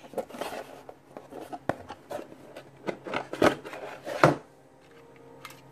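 Cardboard and plastic packaging being handled: scattered rubbing, scraping and small knocks, the two loudest knocks about three and a half and four and a quarter seconds in, then quieter.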